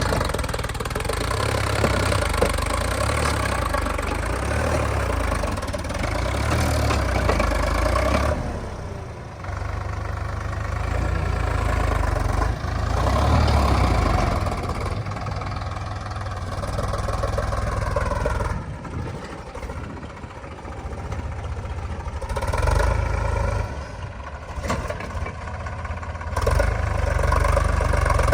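Heavy diesel engine running under load, its pitch rising and falling several times as it is revved and eased off.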